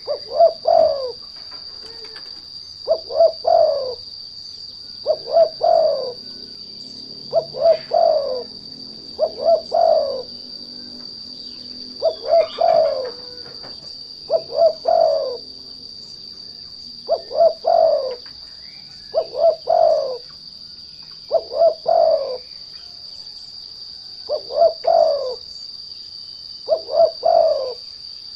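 Derkuku turtle dove cooing: a short phrase of about three notes, repeated roughly every two seconds, the kind of song played as a lure to provoke other doves into singing. A steady high insect drone runs underneath.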